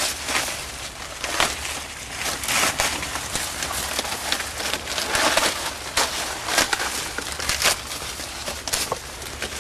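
Dry cornstalks and leaves rustling and crackling as ears of corn are picked and husked by hand, in quick irregular crackles.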